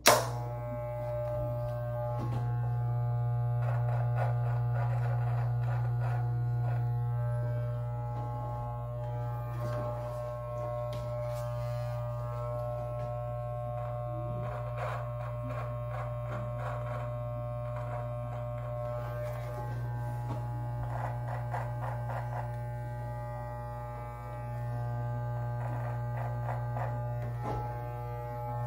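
Electric beard trimmer switched on with a click and buzzing steadily, with a rasping texture that comes and goes every few seconds.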